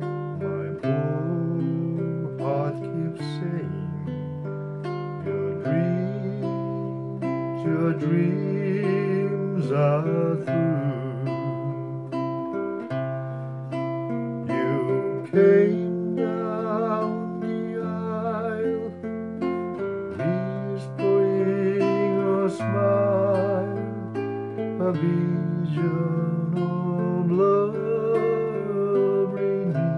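Nylon-string classical guitar playing chords over sustained bass notes, with a man's voice singing along in places.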